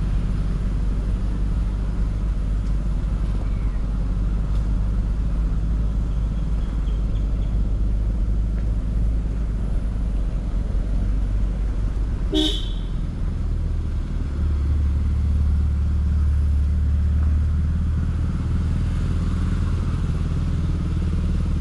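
A small Hero Honda motorcycle's engine running steadily while riding at low speed, with one short horn toot about halfway through. The engine note shifts lower just after the toot.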